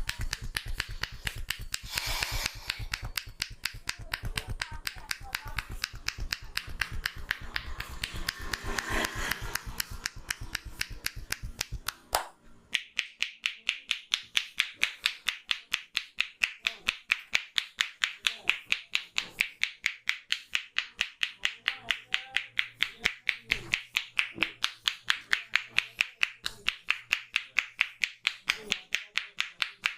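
Rapid, even hand-percussion massage: hands clapping and tapping on the head and neck, about five sharp claps a second. About twelve seconds in, the claps turn crisper and brighter.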